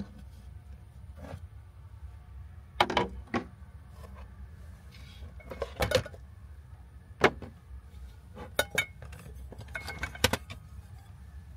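A small metal cooking pot and its lids being handled: several sharp clinks and knocks of metal on metal and plastic at irregular intervals, over a low steady hum.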